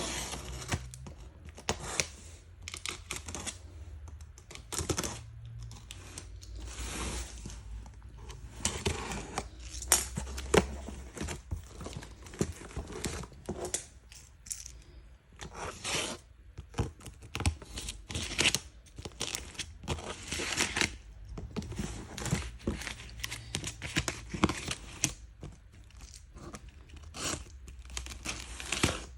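Paper and cardboard packaging being handled while a sneaker box is unboxed: an irregular run of crinkling, rustling and tearing, with sharp clicks and a few longer swishes.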